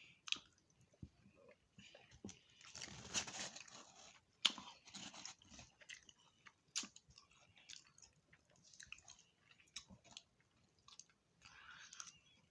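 A person chewing and biting food close to the microphone, with wet mouth smacks and crunching: eating fried fish and tater tots.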